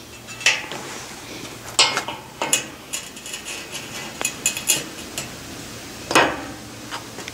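A string of sharp metallic clinks and knocks, a dozen or so, some ringing briefly, the loudest about six seconds in: heat-blued steel parts knocking against a steel rack.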